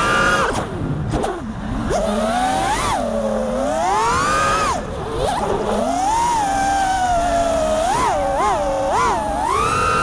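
5-inch FPV freestyle quadcopter's brushless motors whining, the pitch swooping up and down as the throttle is worked, with a run of quick throttle blips about eight seconds in.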